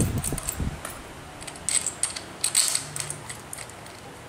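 Short metallic clicks and rattles as a brush cutter's handlebar and its clamp are fitted onto the aluminium drive shaft. The loudest come about two seconds in and again a little later.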